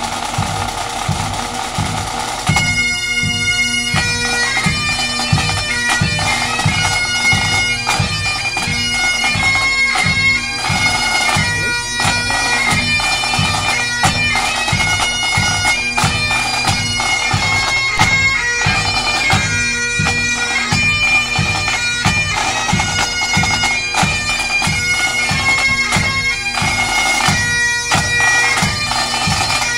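Military pipes and drums playing a march. Several bagpipes play a tune over a steady drone, with side drums and bass drum beating even time.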